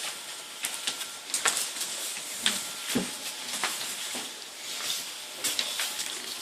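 Handling noise of display parts being fitted together: scattered light clicks and knocks over a rustling hiss, with one heavier knock about three seconds in.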